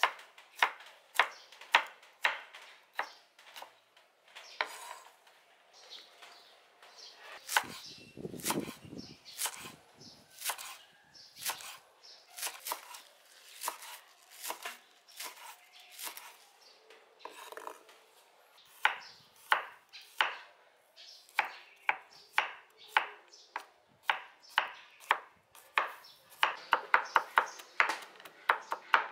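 Chef's knife chopping vegetables (red bell pepper, spring onions, garlic) on a wooden cutting board: a series of sharp knife strikes on the board in uneven runs, quickening to fast, closely spaced chops near the end.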